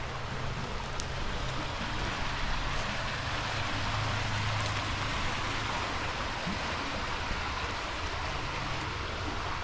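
Steady rushing of flowing water, a stream or spillway, with a low rumble underneath.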